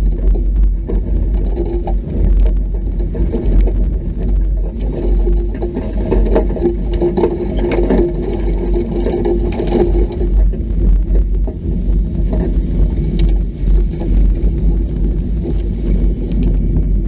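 Off-road vehicle driving over a rough trail: a steady engine rumble with rattling and knocking, the engine note strongest about halfway through.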